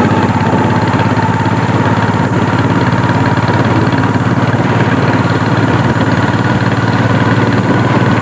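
Motorcycle engine running steadily while riding along at road speed.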